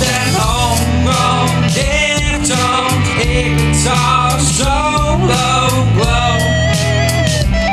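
Rock band playing: electric guitars, bass and drum kit, with a bending melodic lead line over the top.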